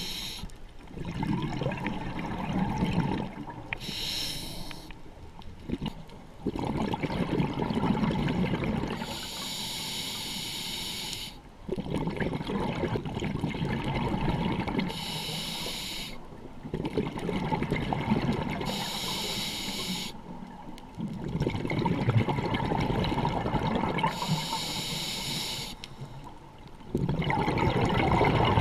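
A scuba diver breathing through a regulator underwater. Each breath is a hissing inhale through the demand valve, followed by a longer gurgle of exhaled bubbles. About five breaths come in a slow, steady rhythm.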